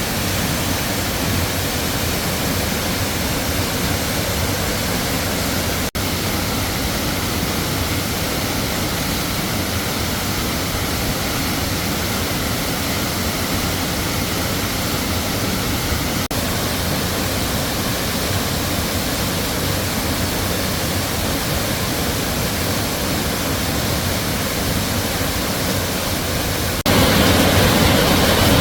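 Waterfall's water rushing and splashing in a steady, even noise, stepping up louder near the end.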